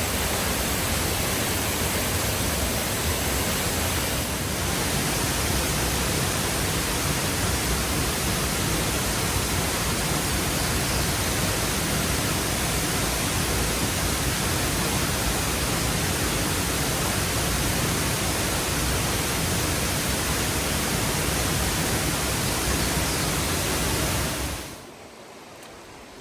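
Waterfall: a steady, even rush of falling water that drops away suddenly near the end.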